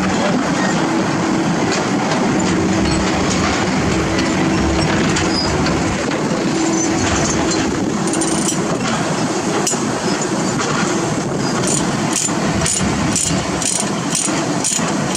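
Diesel engine idling steadily, with sharp metallic clinks and rattles from about halfway through as a steel tie-down chain and its chain binder are worked.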